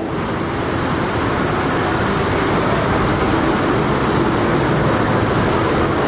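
Water cannon spraying: a steady rushing hiss of water that starts suddenly and holds.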